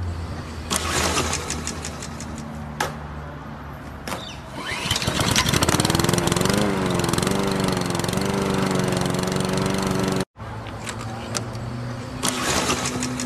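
Small lawn mower engine being pull-started: a few short rasping pulls of the starter cord, then the engine catches with a rising whine and runs loudly for about five seconds before cutting off abruptly. Near the end, the starter-cord pulls begin again.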